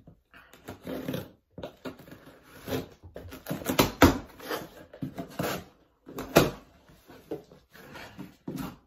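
Cardboard shipping box being cut open with a blade and handled: tape and cardboard scraping and rustling, with two louder knocks of the box about four and six seconds in.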